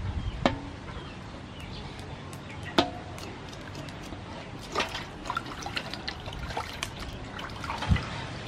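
Water sloshing and dripping in a metal basin as a raw pork leg is rinsed and scrubbed by hand, with scattered sharp clicks and knocks.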